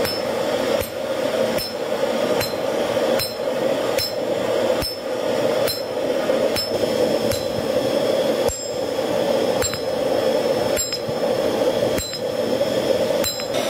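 Hammer blows on red-hot iron on an anvil, struck at a steady pace of a little more than one blow a second, each with a short metallic ring. A steady rushing noise runs underneath.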